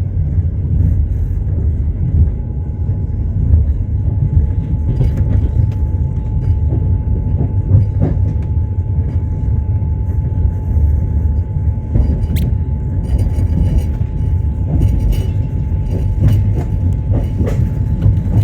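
Train wheels running on the rails: a steady low rumble with scattered sharp clicks and knocks of the wheels, and a faint steady whine.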